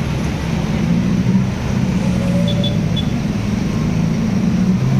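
Bus engine running with a steady low drone, heard close by at the roadside. Three brief faint high peeps come about halfway through.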